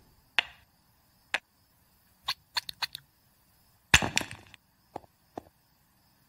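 Cartoon sound effects of wooden toy blocks knocking: a few separate clacks, a quick run of several around the middle, then the loudest clatter about four seconds in as the stacked blocks come down, followed by two lighter knocks.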